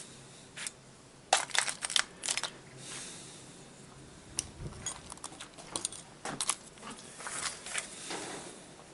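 Irregular clicks and light clatter of small metal parts being handled while a GAZelle heater fan motor is taken apart by hand, with short bunches of knocks.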